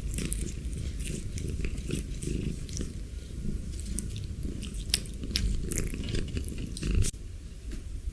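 A silver shaded cat chewing and crunching food close to the microphone, with many irregular crisp crunches.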